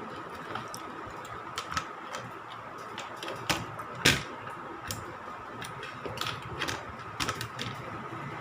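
Irregular light clicks and taps from handling tools and parts on a laptop repair bench, with the loudest knock about four seconds in, over a faint steady high whine.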